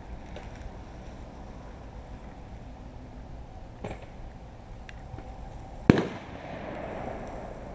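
A single loud gunshot about six seconds in, its echo rolling away for a second or so afterwards. A fainter shot comes about two seconds before it.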